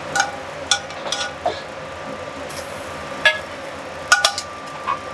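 A metal spoon clinking and scraping against a sauté pan as food is spooned out of it onto a plate. There are about eight sharp clinks, a few leaving a brief ringing tone, over a steady background hiss.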